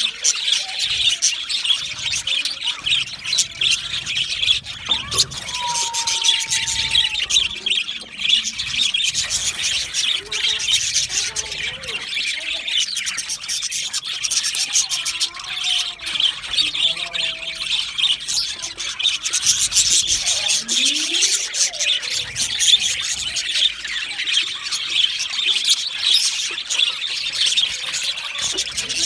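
A flock of budgerigars chirping and chattering in a continuous, dense high-pitched warble.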